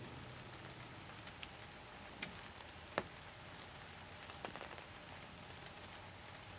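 Faint steady hiss with a few sharp, irregular light taps, the loudest about three seconds in.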